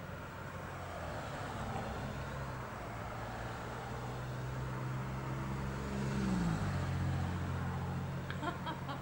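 Cars passing on the street below, their engine and tyre hum swelling as they go by, with the hum dropping in pitch as one vehicle passes about six seconds in. A few quick clicks near the end.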